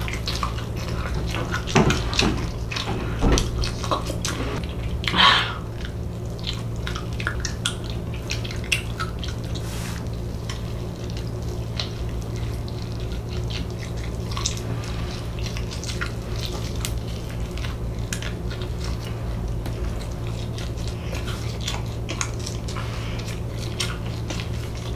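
Close-miked eating of nacho-cheese-covered fried chicken: irregular wet chewing and mouth-smacking clicks, a few louder in the first five seconds, over a steady low hum.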